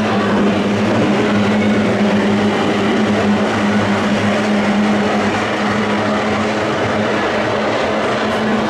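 Two-stroke outboard engines of racing powerboats running at speed, a steady, unbroken engine drone.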